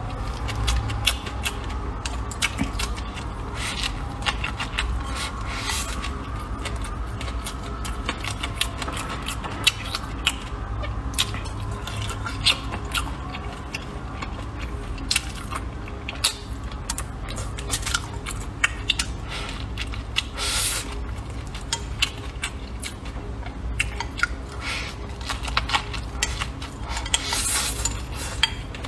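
Close-up eating sounds: chewing and slurping rice noodles, with many small clicks of wooden chopsticks against a bowl. A couple of louder slurps stand out in the second half.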